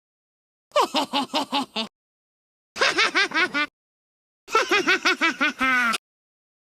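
Cartoon girl character's high-pitched laughing: three separate short laugh clips of quick 'ha-ha-ha' pulses with dead silence between them. The last, longest one ends on a falling note.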